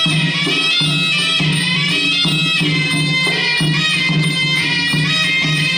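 Traditional Khmer fight music: a sralai, the reedy Khmer oboe, plays a continuous wavering melody over a steady drumbeat. This is the live ring music that accompanies a Kun Khmer bout.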